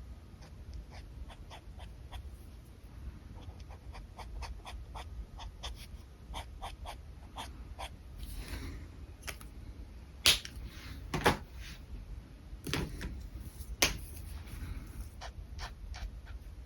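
Light ticking and scratching of alcohol marker strokes on paper, with a dog panting close by and a few loud sharp clicks in the second half.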